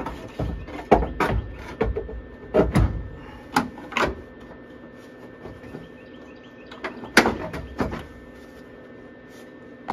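Clunks and knocks of a Toyota FJ60's rear seat backrest being fitted into its mounts and latched: a run of sharp knocks in the first four seconds and another couple of clunks about seven seconds in.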